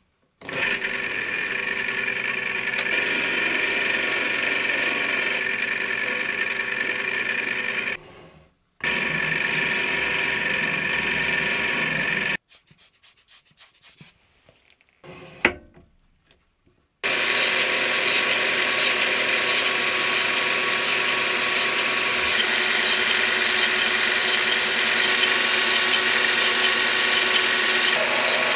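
Mini lathe running steadily while turning a metal bar. About 12 seconds in it stops for roughly four seconds, with a few small clicks and one sharp knock. It then runs again, louder, with a fast high pulsing in its sound.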